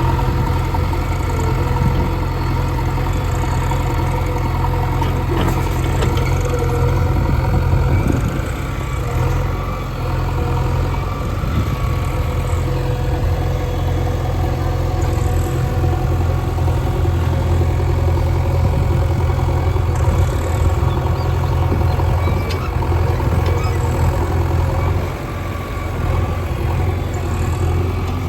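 Heavy diesel engines of a backhoe loader and tractor running steadily, with the loudness dipping briefly about ten seconds in and again near the end.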